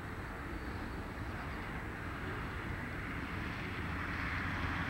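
Alco RS-11 diesel locomotives, V12 engines running, approaching with a steady low drone that slowly grows louder as the train draws near.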